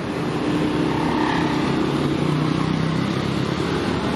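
Mercedes-Benz OH 1626 coach's diesel engine running as the bus pulls out and turns, growing louder over the first second, then steady.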